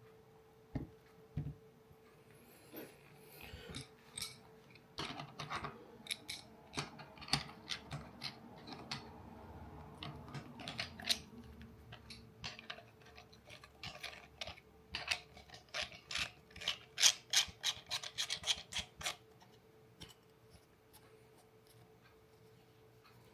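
Camera rig hardware being handled: two light knocks about a second in, then quick runs of small clicks and rubbing, busiest around five to nine seconds in and again from about fifteen to nineteen seconds in.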